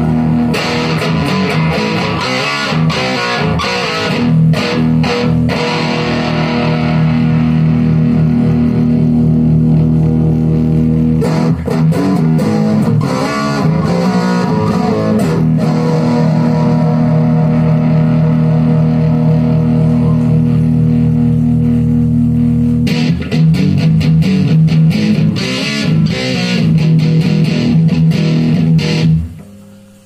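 Electric guitar played through a Marshall Jackhammer JH-1 overdrive/distortion pedal, its distorted chords strummed in bursts with long held chords ringing between. The playing stops abruptly about a second before the end.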